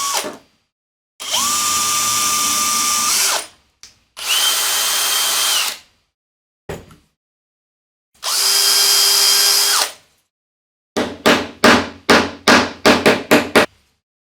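Power drill running in three steady bursts of about two seconds each, with a steady whine. Near the end come about ten quick trigger pulses, the motor winding down after each.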